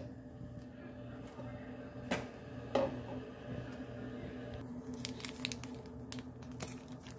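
Plastic packet of powdered milk crinkling as it is handled and opened, from about five seconds in, after two light knocks; a steady low hum runs underneath.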